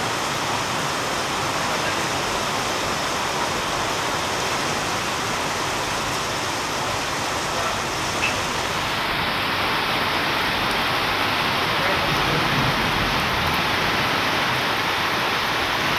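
Heavy rain pouring down, a steady even hiss that gets slightly louder in the second half.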